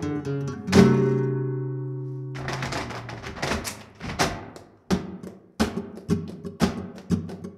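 Flamenco guitar playing a seguiriya: a strummed chord about a second in rings out, then from about two and a half seconds in it is joined by a run of sharp flamenco hand claps (palmas).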